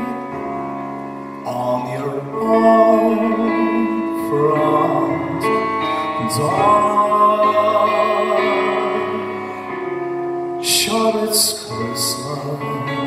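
Live orchestra playing a Christmas song arrangement, with a male vocalist holding long notes into a microphone. Several bright, hissy strokes come near the end.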